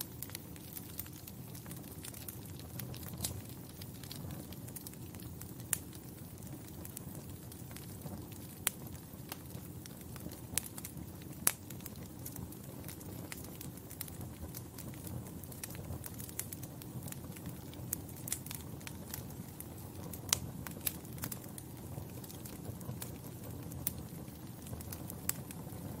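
Wood fire crackling in a fireplace: a steady low rumble of flames with irregular sharp pops and snaps, a few of them much louder than the rest.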